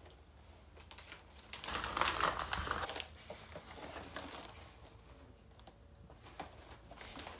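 Plastic mailer bags and a cardboard box crinkling and rustling as they are handled, loudest for about a second and a half from just before two seconds in, then softer rustles and small knocks.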